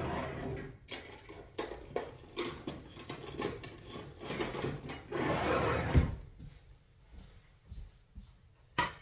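Kitchen handling noises: scattered clicks and rustling, with a sharp knock about six seconds in and two sharp clicks near the end.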